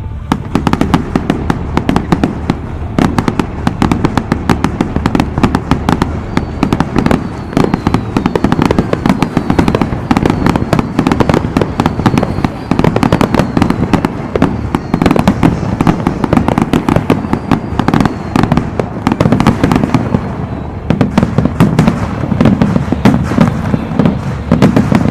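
Aerial fireworks display: a dense, continuous barrage of rapid bangs and crackles.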